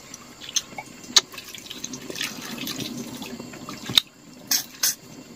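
Wet eating sounds, chewing and slurping, with a few sharp clicks scattered through; the loudest click comes about four seconds in.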